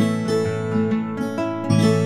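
Background music played on acoustic guitar, with plucked notes ringing on and changing throughout.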